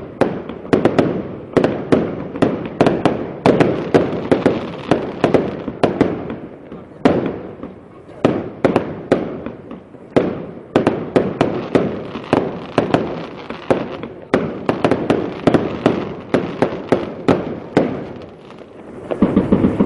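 Aerial fireworks display: shells bursting in a rapid, irregular string of sharp bangs, often several a second, each with a short echoing tail, broken by brief lulls between volleys.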